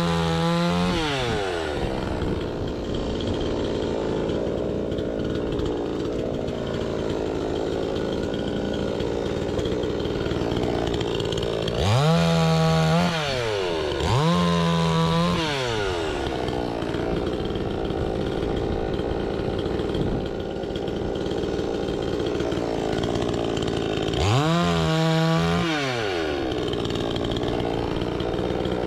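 Two-stroke chainsaw running steadily, its engine revved up and back down four times: at the start, twice close together around the middle, and once near the end.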